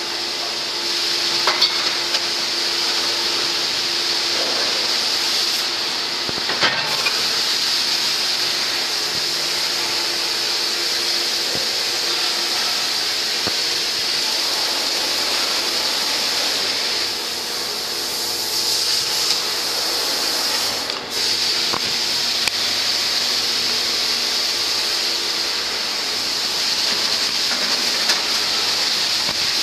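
Aluminum melting furnace hissing steadily while molten metal is worked in its crucible, with a few brief knocks.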